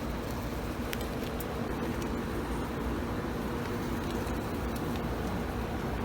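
Honeybees buzzing around an open hive: a steady hum with a higher overtone above it, and a few faint ticks.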